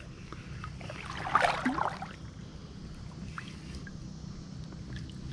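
Shallow seawater sloshing around someone wading over a reef flat, with a brief louder splash about a second and a half in.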